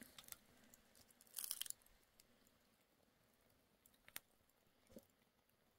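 Mostly near silence, with a brief rustling scrape about a second and a half in and two sharp crackles from a small twig-and-branch wood fire, about a second apart, near the end.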